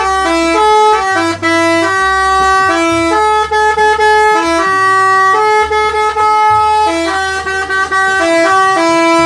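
Indonesian bus 'telolet' musical air horn playing a tune: a loud run of held horn notes that step from pitch to pitch every third to half second, with no break.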